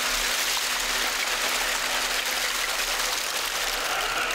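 Harvested oyster clusters pouring from a hoisted net bag onto a heap: a dense, steady clatter of shells tumbling and rattling down the pile.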